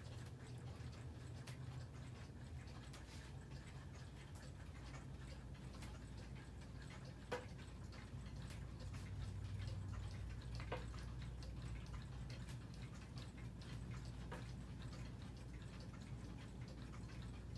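Several clocks ticking together, their ticks overlapping out of step, with a few sharper clicks about seven, eleven and fourteen seconds in, over a low steady hum.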